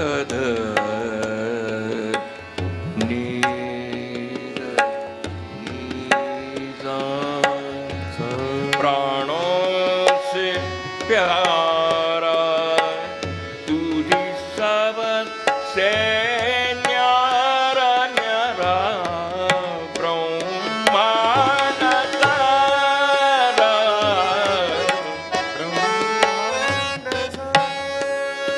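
Hindustani classical vocal performance: a male singer holding long, gliding sung notes, with tabla keeping a steady rhythm. A harmonium follows the voice over the steady drone of two tanpuras.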